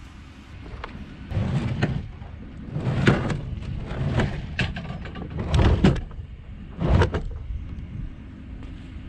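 Kayak and gear being loaded up: a string of irregular knocks, bumps and scraping rubs, about six in all, the loudest about three seconds in and near the six- and seven-second marks.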